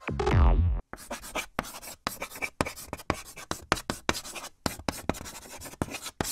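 A burst of electronic music ends with a falling glide less than a second in. Then comes a quick, irregular run of short scratchy strokes, about four or five a second.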